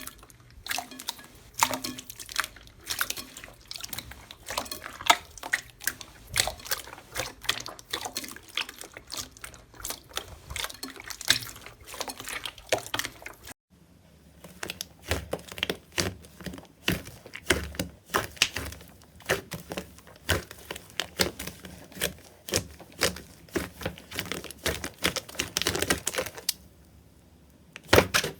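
Slime being squeezed and stretched by hand, giving rapid wet clicks and sticky pops. The clicking runs in two stretches, with a brief break about halfway through.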